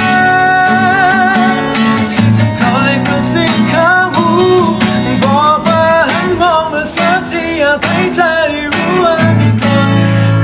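A man singing over a strummed acoustic guitar, holding long notes with vibrato.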